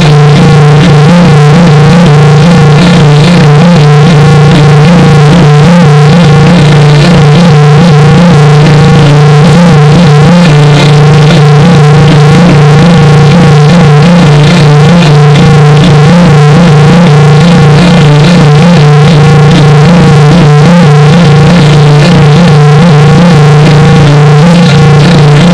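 A "G major" edited sound effect: a synthesized, heavily processed sound played at full, clipping loudness. A steady low drone is held throughout, under wavering, warbling higher tones.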